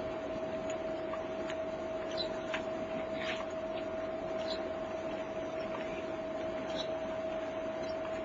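Steady mechanical hum of a ship under way, holding one unwavering tone, with scattered light clicks and ticks every second or so.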